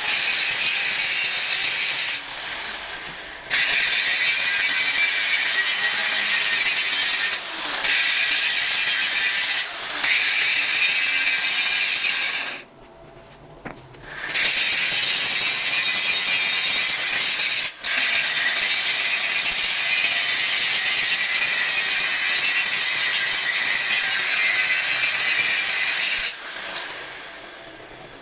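Angle grinder running against steel in long passes. It is released a few times and spins back up, and near the end it winds down with a falling whine.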